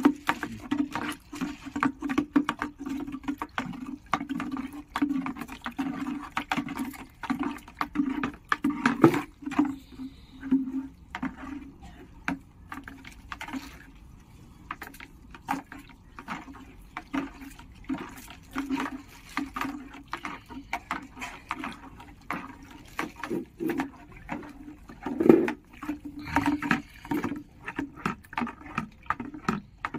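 Water running from a hose into a plastic bucket while a stick stirs the mix, with frequent irregular knocks and sloshing throughout: phenyl concentrate being diluted with water.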